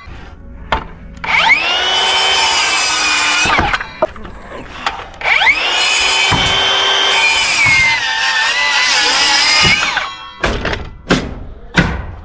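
Handheld circular saw making two crosscuts through lumber, spinning up, cutting and winding down each time, the second cut longer. A few sharp wooden knocks near the end.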